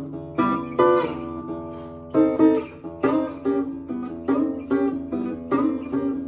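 Early-1950s Leif Hansson acoustic guitar played solo in a slow blues, plucked notes ringing a few times a second over a held low note.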